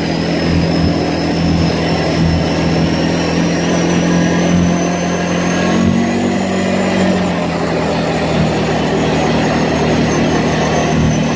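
ATV engine running steadily as the quad rides along, with a thin high whine that climbs slowly in pitch for most of the stretch and then eases slightly near the end.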